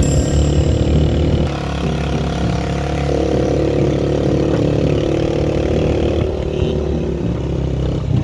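Motorcycle engine running while riding, its pitch shifting a couple of times as the revs change.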